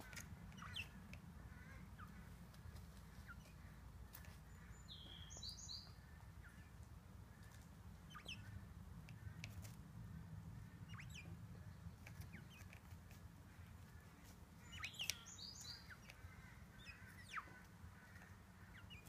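Quail giving soft, short chirps now and then, with brief high twittering calls about five seconds in and again near fifteen seconds, over a faint low hum.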